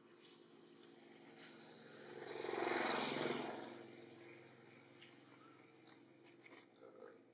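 A motor vehicle passing by: its engine and road noise swell up about two seconds in, peak, and fade away over roughly two seconds, over a faint background with a few small clicks.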